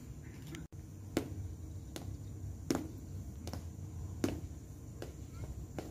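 Footsteps in a steady walking rhythm, a sharp step about every three-quarters of a second, over a low steady background rumble.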